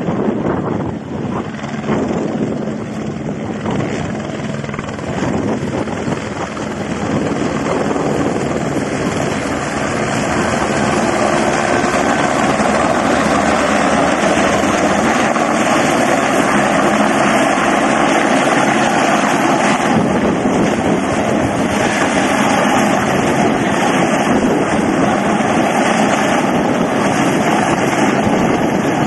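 Firefighting helicopter hovering low with its water bucket slung beneath: a steady rotor and turbine roar that grows louder over the first ten seconds or so, then holds. Wind buffets the microphone early on.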